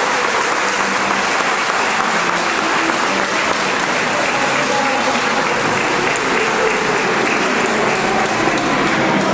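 A crowd applauding steadily, with dense continuous clapping.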